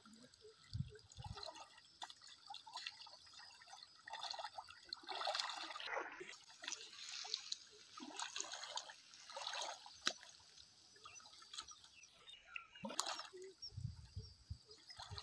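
River water sloshing and swishing around a person wading waist-deep, in faint, irregular splashes as the body and arms push through the water.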